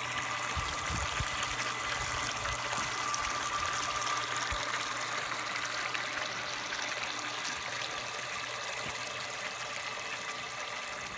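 Maple sap running into a stainless-steel evaporator pan: a steady sound of flowing liquid.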